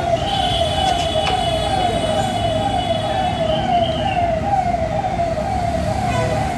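An electronic siren-like warning tone repeating rapidly, each note falling in pitch, about two to three notes a second. A higher steady tone sounds over it for the first four seconds or so.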